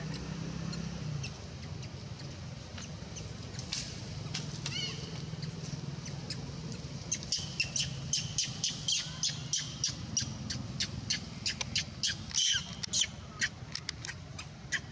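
Young macaque crying in a fast run of short, sharp, high-pitched squeaks that starts about halfway through, after a single high squeal, over a steady low hum.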